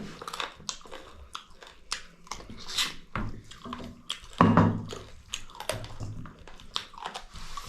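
Close-miked eating sounds: wet chewing, lip-smacking and small mouth clicks, irregular throughout, with one louder moment about halfway.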